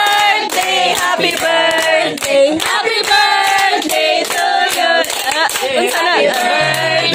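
Several voices singing together with hand clapping in a steady beat, about three claps a second. A low bass note comes in near the end.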